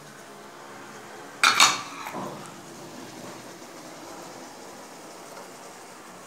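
Metal ladle clanking against an aluminium pressure cooker: a quick double clank about a second and a half in, then a softer knock, over a faint steady hiss.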